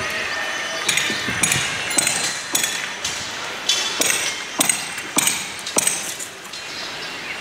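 Irregular sharp metallic taps and clinks of a tool striking hard material, about nine in all, each with a short high ring.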